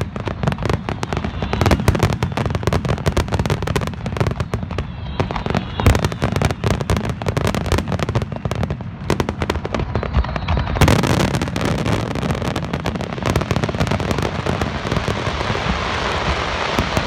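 Aerial fireworks bursting in rapid succession, many sharp bangs close together; about two-thirds of the way through they merge into a dense, continuous crackle.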